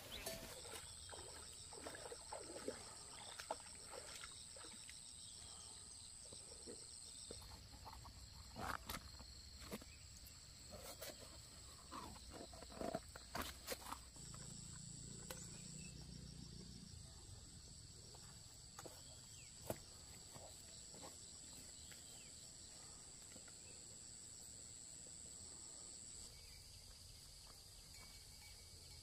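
Faint outdoor ambience: a steady high-pitched insect drone that stops and starts again, with scattered light clicks and knocks.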